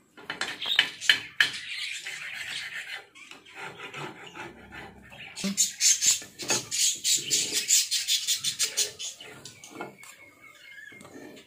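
Metal spoon and flat spatula scraping and tapping on an iron tawa while mashing and mixing pav bhaji. The strokes come in a quick run, fastest a little past the middle, several strokes a second.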